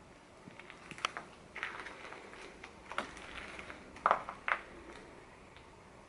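Footsteps crunching on the loose rock and rubble of a limestone cave floor, in irregular steps and scrapes, the loudest pair of steps about four seconds in.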